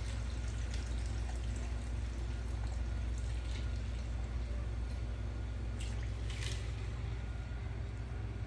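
Pickling brine poured in a thin stream from a plastic jug into a glass jar packed with green peppers and garlic, a steady trickle of liquid, over a steady low hum.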